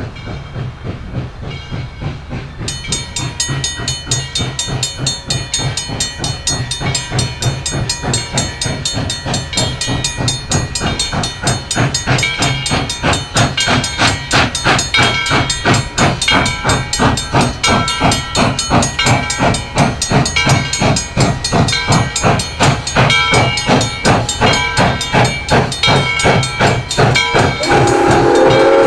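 Southern Railway 2-8-0 Consolidation steam locomotive No. 630 working a train, its exhaust chuffing in a steady beat that grows louder as it approaches, with metallic ringing over it. Its chime steam whistle starts to blow just before the end.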